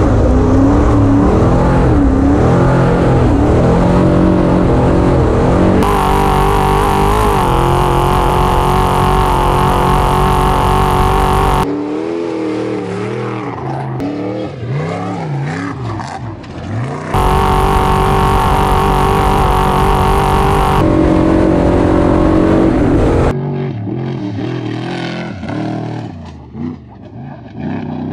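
Trophy Truck V8 engines at high revs on dirt. The audio cuts abruptly several times between a loud, steady engine note and quieter stretches where the pitch rises and falls as a truck revs and drives past.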